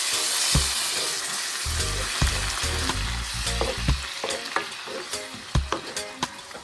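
A creamy liquid poured into a hot wok of sautéed vegetables, sizzling hard as it hits the pan and dying down over the next few seconds. A wooden spoon stirs, scraping and knocking against the pan again and again.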